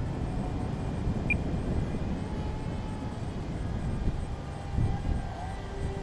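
Wind buffeting the microphone, with the faint thin whine of the radio-controlled Fun Jet model plane's motor flying overhead, its pitch shifting slightly near the end.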